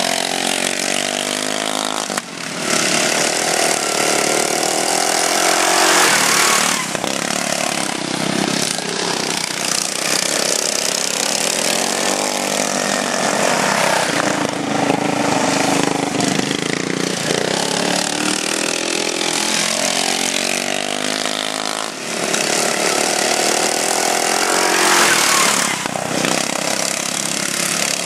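Racing riding lawnmowers' small engines running hard, their pitch rising and falling as the mowers speed up, slow for the turns and pass by.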